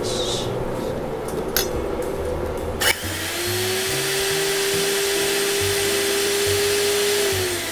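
Electric spice mill grinding dried chilies and Sichuan peppercorns: a click about three seconds in, then the motor spins up to a steady hum with a rushing hiss of spice being pulverised, winding down near the end.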